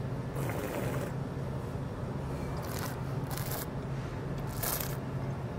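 A wine taster drawing air over the wine in four short, airy, hissing pulls, the way wine is nosed and aerated in the mouth while tasting. A steady low hum runs underneath.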